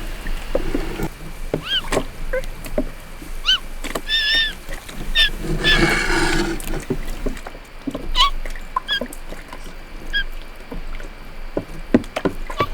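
Foley sound effects: a string of short high squeaks and chirps among scattered clicks and knocks, with a brief rushing noise about halfway through.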